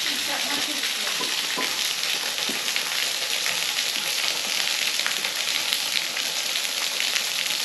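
Waterfall splashing onto rock: a steady hiss of falling water with a fine, crackling patter.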